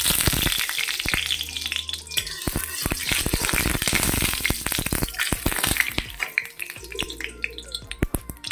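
Dried fish (shutki) frying in hot oil in a kadai: dense sizzling and spitting crackles that thin out to scattered pops about six seconds in.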